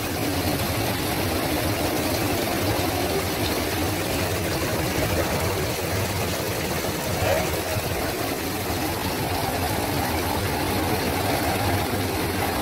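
Heavy rain pouring steadily onto a paved street, a constant even rush of noise.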